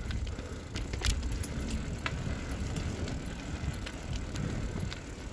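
Tyres rolling along a rough paved footpath with a steady low rumble, and scattered light clicks and rattles from the ride.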